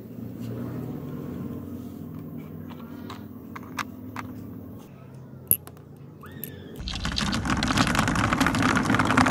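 Glass marbles tipped from a tube into a plastic building-block marble run, clattering and rattling down the track. The dense rattle starts suddenly about seven seconds in. Before it there is only a low steady rumble and a few light clicks.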